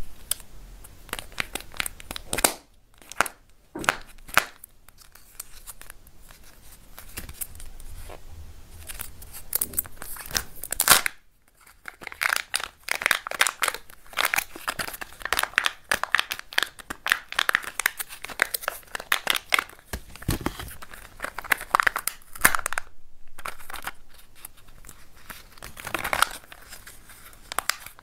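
Kinder Joy eggs being unwrapped by hand: the thin plastic film wrappers crinkling and tearing as they are pulled off, and the sealed lid peeled away from a plastic egg half, with many sharp clicks and taps from the plastic shells.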